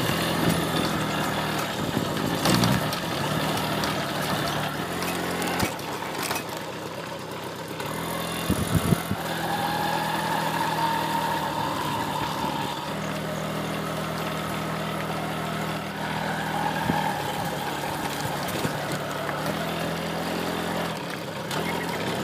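Single-cylinder four-stroke engine of a TVS XL100 moped running under way, its pitch stepping up and down every few seconds as the throttle changes, over steady road and wind noise.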